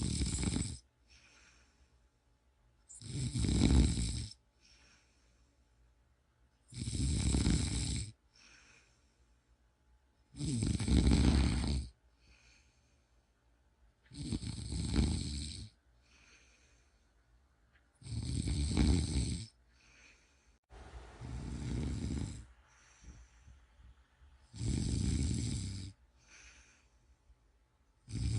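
A person snoring in a slow, regular rhythm: one loud snore about every four seconds, each lasting a little over a second, with faint breaths between. One snore about three-quarters of the way in is softer and breathier.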